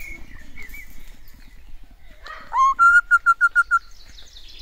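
Crimson rosella calling at close range: a faint wavering note, then a loud rising call about two and a half seconds in. The rising call runs straight into a quick series of about six short, even piping notes.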